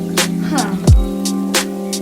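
Background music with a hip-hop style beat: deep kick drums that drop in pitch and sharp snare hits over a held chord.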